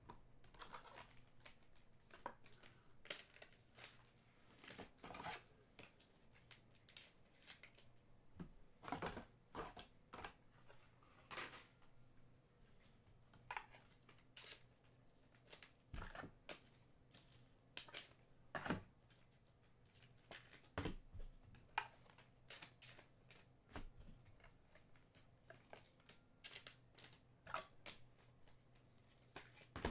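Trading card packs and cards being handled: faint, scattered short rustles, snaps and clicks as wrappers are torn and cards are slid and sorted.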